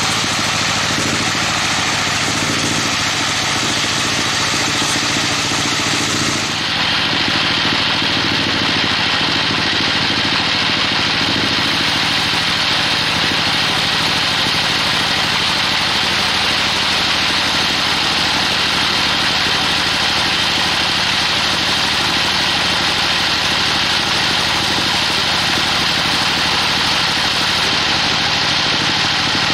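Band sawmill running, its blade sawing lengthwise through a trembesi (rain tree) log with a loud, steady machine noise. The sound shifts abruptly in tone about six and a half seconds in.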